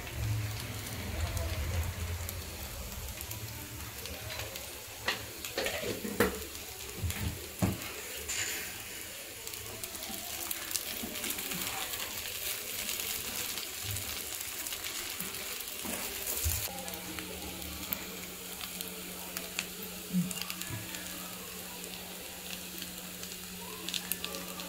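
Cubed idlis sizzling in butter in a nonstick frying pan while a wooden spatula stirs them, with occasional knocks and scrapes of the spatula against the pan.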